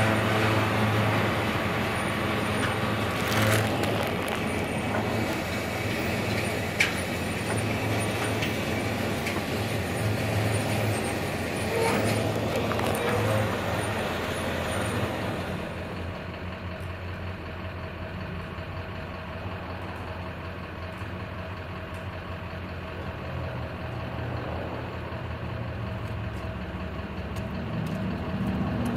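A motor vehicle's engine idling steadily, a low hum with some noise over it; the noise eases about halfway through.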